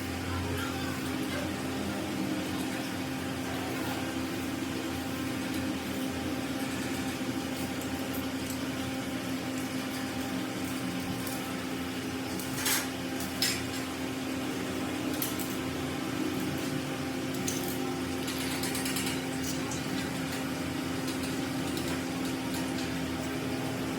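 An electric workshop machine motor running at a steady pitch, with a few short metallic clicks and ticks around the middle.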